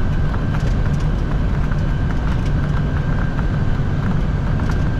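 Steady flight-deck noise of a Boeing 747-400F on final approach, heard inside the cockpit: airflow and engine noise as an even low rush, with a faint steady high tone and a few light ticks.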